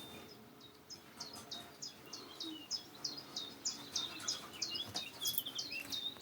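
A small bird chirping: an even run of short, high notes, about three a second.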